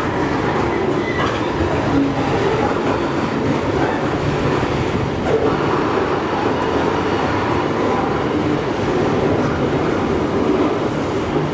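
Loaded container wagons of a long freight train rolling past on the rails: a steady, loud rolling noise of steel wheels on track.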